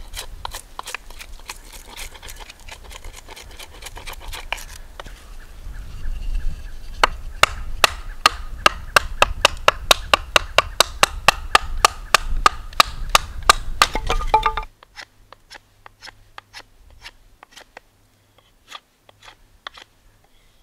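A knife whittling wood with scattered scraping clicks, then a steady run of sharp wooden knocks, about three a second, as a stick standing on a flat stone is split by striking down on it. The knocks stop abruptly, leaving faint, sparse knife-on-wood clicks.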